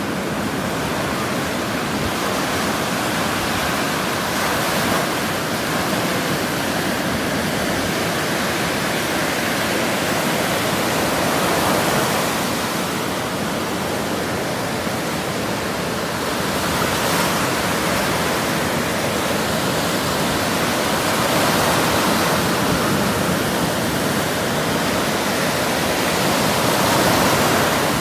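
Sea surf washing and breaking on the shore, a continuous rush of water that swells a little louder every few seconds.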